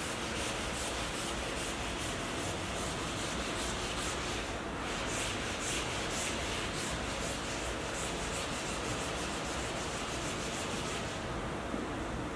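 Gloved hand rubbing a white coating across a painted canvas in quick repeated back-and-forth strokes, a dry scratchy scrubbing that lets up briefly midway and again near the end.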